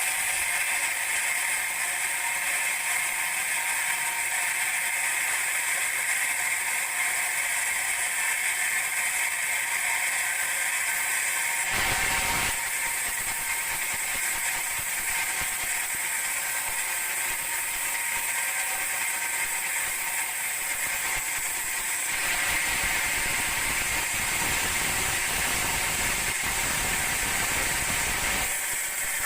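Sawmill band saw running steadily, a high whine over a hiss. A short low rumble joins about twelve seconds in, and a longer one from about twenty-two seconds until shortly before the end.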